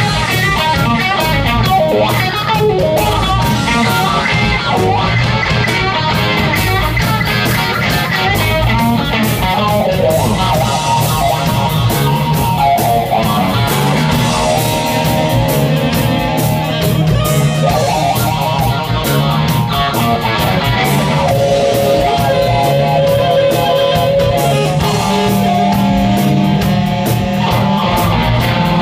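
Live blues band playing: a saxophone solos over electric guitar, bass guitar and drums. The guitar is a Gibson Les Paul played through a Marshall Bluesbreaker amp. The saxophone plays quick wavering runs at first, then long held notes from about halfway through.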